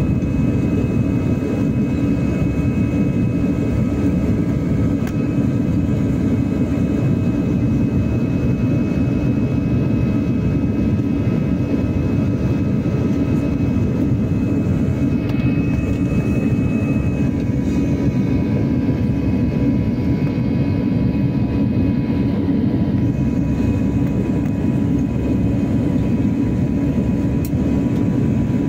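Airbus A320 jet engines heard from inside the passenger cabin during the climb: a steady low rumbling rush with faint steady whining tones above it. A few of the whining tones fade a little past halfway.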